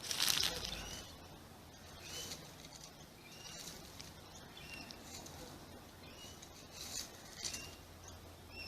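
A loud rustle or scratch in dry leaf litter in the first second, then fainter scuffs, with short high bird chirps repeating every second or two.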